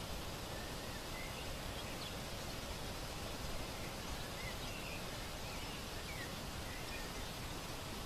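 Steady outdoor background noise by a lake, with faint, short bird chirps scattered through.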